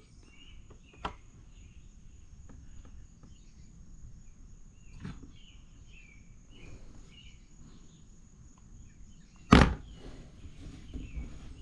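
Quiet background with faint scattered chirps and a thin steady high whine, broken by a few light clicks and one sharp knock about nine and a half seconds in.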